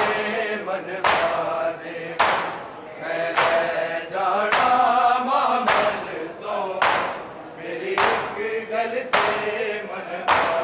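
A large group of men chanting a noha in unison while doing matam, beating their chests with their open hands. The slaps land together in a steady beat, about one a second, between the sung lines.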